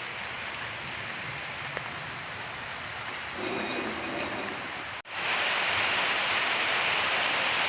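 Steady rain falling in a continuous hiss. About five seconds in it cuts off abruptly and comes back louder and hissier.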